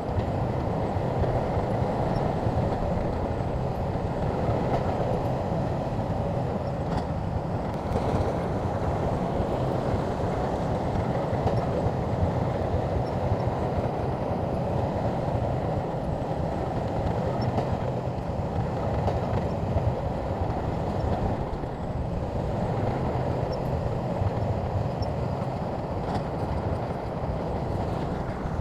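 Shantui crawler bulldozer running steadily at work, its diesel engine and tracks making a continuous rumble.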